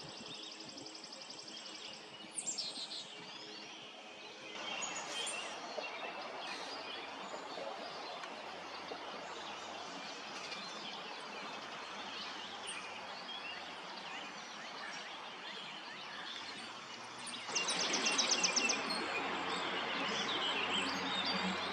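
Wild songbirds singing and calling outdoors over a steady background hiss, in several cut-together stretches, with a fast, high trill near the end.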